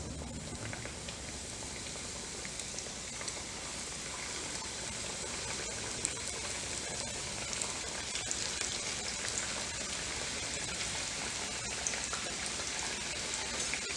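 Samosas deep-frying in hot refined oil in a kadhai: a steady sizzle with scattered small pops from the bubbling oil, slowly growing louder.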